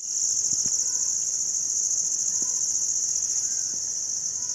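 Evening chorus of crickets: a loud, steady, high-pitched trill with a fine, fast pulse.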